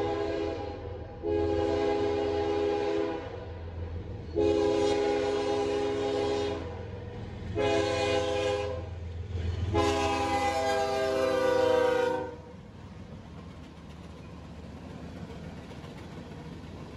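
Norfolk Southern freight locomotive's air horn, several notes sounding together, blowing the grade-crossing signal: a blast that ends about a second in, then long, long, short, long, the last held about two and a half seconds. The horn stops about twelve seconds in, giving way to the steady rumble of the freight cars rolling through the crossing.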